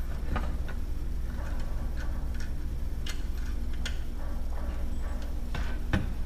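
Scattered light clicks and knocks as the Yamaha outboard's lower unit gearcase, with its water pump housing, is pushed up and fitted against the midsection by hand, over a steady low hum.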